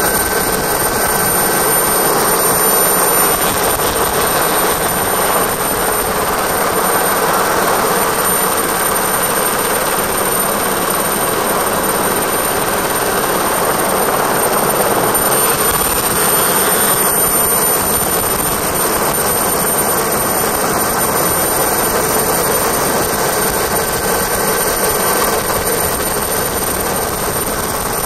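Helicopter engine and rotor noise heard from aboard: a loud, steady, unchanging drone.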